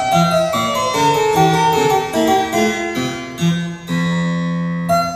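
Baroque harpsichord music: quick runs of plucked notes, settling on a held chord about four seconds in before the quick notes resume.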